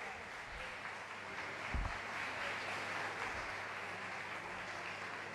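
Boxing crowd cheering and clapping, a steady dense noise, with one dull thump about two seconds in.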